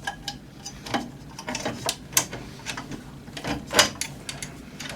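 Irregular light clicks and metallic clinks of small metal parts and tools being handled while a 3D printer is assembled by hand, one louder knock near the end.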